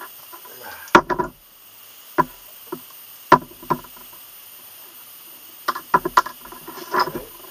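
Tools and work being handled on a wooden workbench: tongue-and-groove pliers and a leather knife sheath set down and picked back up, a series of sharp knocks and clacks, the loudest about a second in and just after three seconds, with a quick cluster near six seconds.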